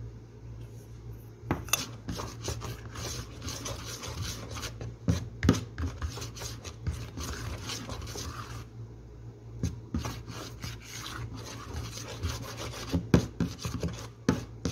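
Electric hand mixer's wire beaters scraping and knocking against the sides of a mixing bowl while flour is beaten into a thick butter cake batter, over the motor's steady low hum. The scraping stops for about a second a little past the middle, then starts again.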